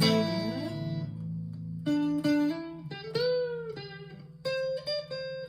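Clean electric guitar played through the neck pickup: a ringing chord fades with a slide down the strings, then single picked notes follow, one bent up and let back down about three seconds in.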